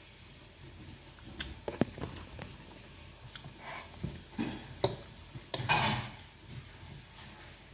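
Metal fork clinking and scraping on a ceramic plate while cutting and spearing pieces of mango, with a few sharp clinks, the loudest about two seconds in and just under five seconds in.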